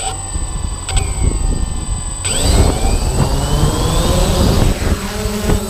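Quadcopter's electric motors and propellers running, heard up close from the camera mounted on the craft. About two seconds in they spin up, louder, with a rising whine, throttling up for takeoff.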